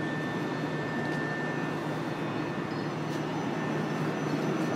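Steady machine hum with a faint, constant high-pitched whine over even background noise.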